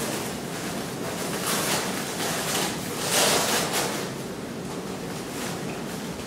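Large fabric costume pieces rustling and swishing as they are shaken and dragged across the floor. The swishing rises in surges, loudest about three seconds in.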